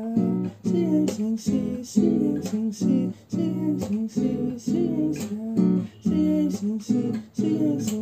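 Intro theme music: chords struck in a steady, even rhythm, about two a second.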